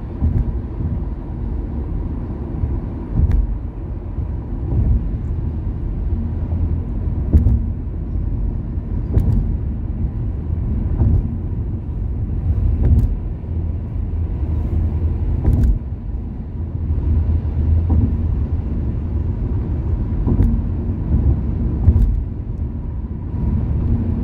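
A car driving at highway speed: a steady low rumble of tyres and engine, with a few brief knocks now and then.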